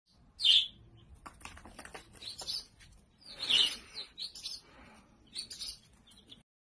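Baby chicks peeping in short high-pitched chirps, in three loud clusters: about half a second in, around three and a half seconds, and near the end. Faint clicks and rustling between.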